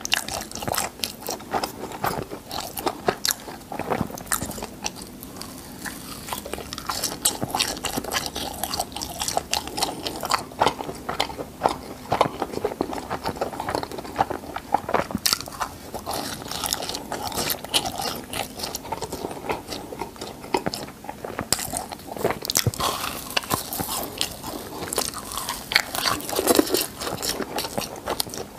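Close-miked mouth sounds of eating crispy cheese balls: chewing and crunching with many short, irregular crackles as the crisp crust breaks.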